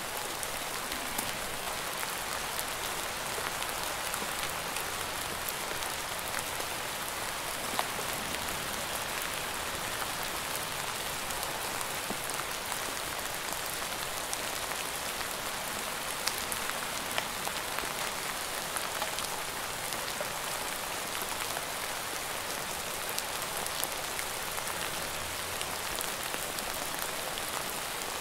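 Steady rain falling: a dense, even patter with a few sharper, louder drop ticks scattered through it.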